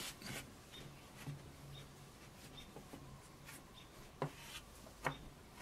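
Faint rubbing and scratching of hands handling a soft modelling-clay figure, with two small sharp knocks about four and five seconds in.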